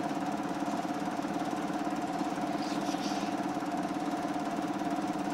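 A motor running steadily at one constant pitch.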